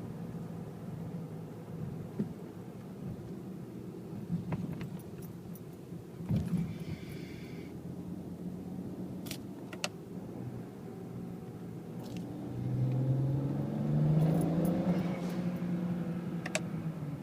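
BMW 335i's turbocharged inline-six engine running steadily at low revs, then revving up about two-thirds of the way through and easing back off near the end. A brief airy hiss comes in around six and a half seconds in, and a few sharp clicks are heard.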